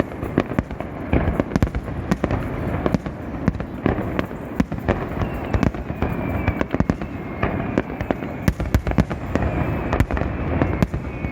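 Fireworks display: a dense, irregular barrage of sharp bangs and pops over a continuous rumble, with a few faint whistles falling slightly in pitch.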